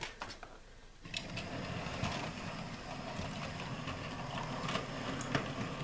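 Hornby K1 OO-gauge model locomotive running with a train of wagons: a steady motor whirr with the wheels rattling over the track, starting about a second in.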